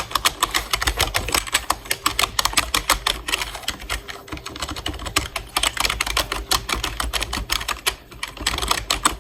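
Typing on a computer keyboard: fast, continuous keystroke clicks, several a second without a break.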